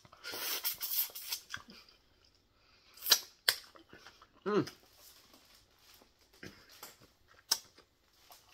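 Close-mic eating sounds of a woman chewing food: a stretch of chewing noise in the first second or so, a few sharp lip smacks, and a short falling 'mmm' about halfway through.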